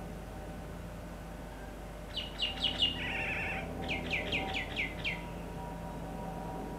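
A songbird sings a phrase of short downward-sweeping notes, about four, then a brief buzzy trill, then about six more, over a steady low hum and hiss.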